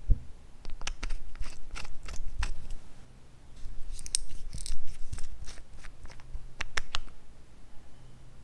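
A run of small sharp clicks and light scrapes from handling small plastic cosmetic bottles: a cap being twisted open and applicator tips tapping and dragging on glass dishes. The clicks come closest together in the middle.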